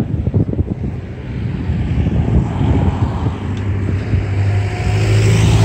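A road vehicle approaching and passing: a low engine hum and tyre hiss grow steadily louder, peaking near the end.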